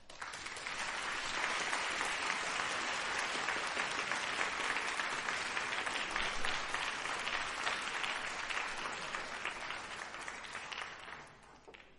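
Audience applauding in a hall after the final chord of a brass ensemble piece; the clapping starts at once, holds steady, then thins out and fades away near the end.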